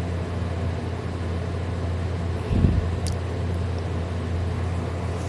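A person sleeping on his back, snoring: one short snore about halfway through over a steady low hum, with a brief click just after it.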